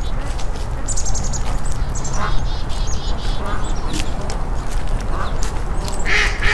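A group of ducks quacking, with calls overlapping in quick runs, over a steady low rumble.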